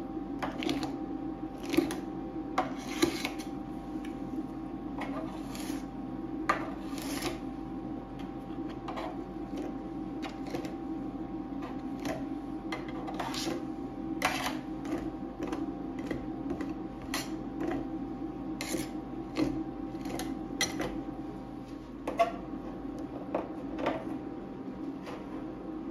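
Metal spatula scraping and spreading ice cream across a frozen steel plate, in irregular strokes with a few sharp taps, over a steady low hum.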